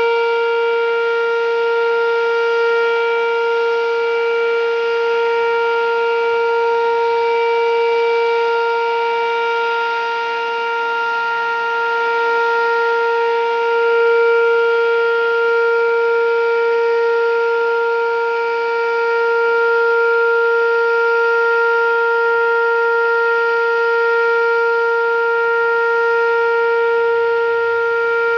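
Whelen 2805 electronic outdoor warning siren sounding the Alert signal: one steady, unwavering tone that swells and eases slightly in loudness.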